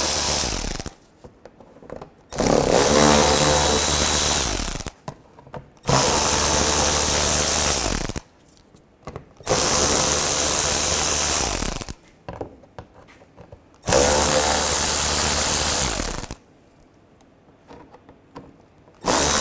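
Cordless electric ratchet with a T25 Torx socket spinning out screws from a plastic splash panel, running in short bursts of two to three seconds, about six times, with brief pauses between.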